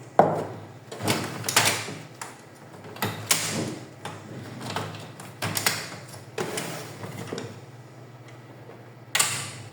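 Plastic clicks and knocks from handling and pulling apart a laser printer's casing parts during disassembly. The knocks are irregular, a few close together early and a louder one near the end, over a steady low hum.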